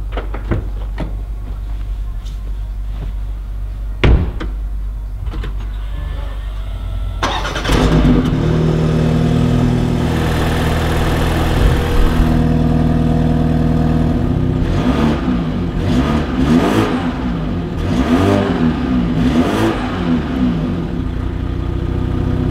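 BMW 330e's 2.0-litre four-cylinder petrol engine starting about seven seconds in, idling steadily, then revved several times in short rising-and-falling blips. Before it starts there is a low steady hum with a few clicks and a single thump.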